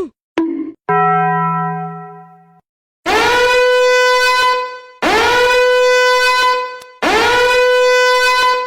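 Meme sound effects: two short blips and a held buzzy tone, then a horn blown in three identical long blasts. Each blast swoops up into a steady held note about two seconds long.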